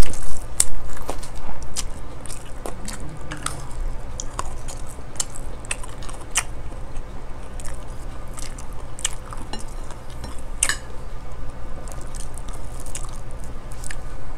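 Close-miked eating: chewing and mouth sounds, with scattered short clicks of spoons and forks against ceramic plates.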